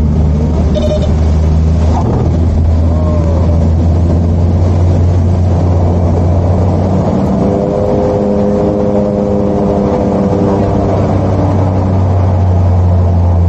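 Steady drone of a small propeller aircraft's engines heard inside the cabin. A second set of higher tones joins in for a few seconds past the middle.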